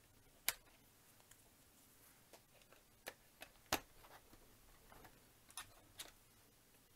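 Plastic building bricks clicking as they are pressed together and handled: a scattering of faint, sharp, irregular clicks, the sharpest about half a second in and near the middle.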